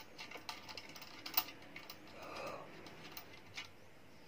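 Small clicks and ticks of a hand screwing the blade-retaining nut onto the shaft of an electric stand fan, turning it to the left to tighten it, with one louder click about a second and a half in and a short rustle just after.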